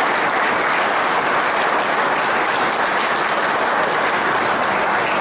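Audience applause: many hands clapping steadily and loudly.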